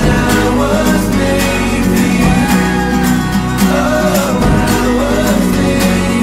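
Background love song with a sung vocal melody over a steady beat.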